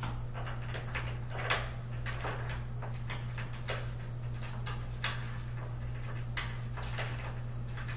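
Irregular clicks, knocks and short scrapes of day bed frame parts being handled and bolted together, over a steady low hum.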